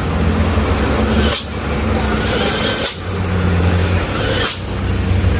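Heavy diesel engine running steadily with a low hum, its level briefly dipping about every second and a half.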